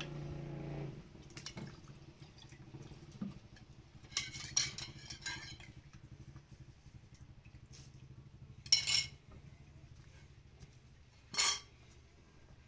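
Metal cooking utensils and dishes clinking and knocking, with two short, louder scraping noises later on.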